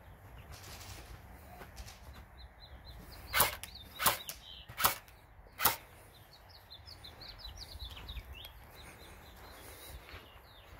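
Airsoft gunfire: four sharp single cracks about three quarters of a second apart, with short high chirps in the background.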